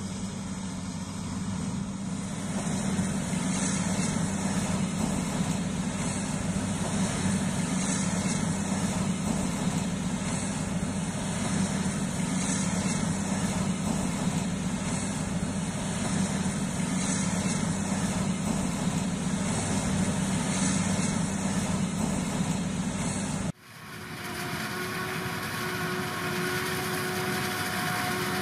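Heavy diesel farm machinery running in a silage maize harvest: a steady engine drone with a deep hum. Near the end it changes abruptly to a different machine running with a steady whine.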